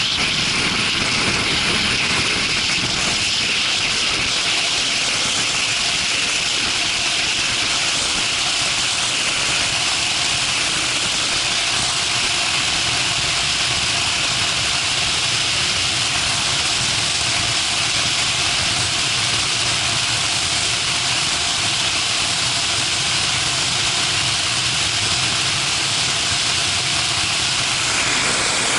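Steady wind rush over an action camera's microphone on a moving motorcycle, with engine drone underneath. The level stays even throughout, as at a constant cruising speed.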